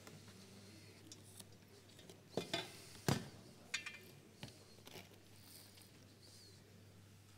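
A few scattered clinks and knocks of plates and utensils on a kitchen counter, the loudest about three seconds in, over a faint steady hum.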